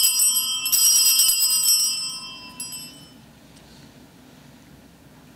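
Altar bells (a set of small Sanctus bells) shaken during the elevation of the host at the consecration: a bright jangle of many high tones, shaken again about a second in, then dying away by about three seconds.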